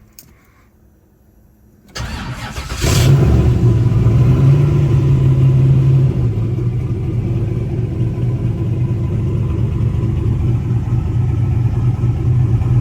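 Turbocharged LS V8 race car engine cranked on the starter about two seconds in, catching with a loud flare just before three seconds, then idling steadily and loudly, a little louder for the first few seconds after it catches.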